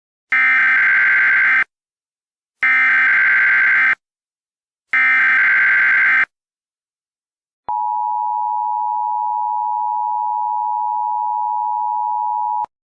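Emergency Alert System tones: three bursts of SAME header data, a harsh buzzing warble of about a second and a half each, then the two-tone attention signal held steady for about five seconds before cutting off. Together they announce the start of a new emergency alert message.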